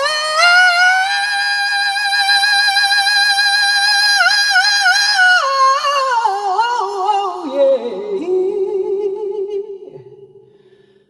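A single voice singing a cappella as a vocal sound check. It climbs to a long, high held note with vibrato, then runs down and settles on a lower held note that fades away near the end.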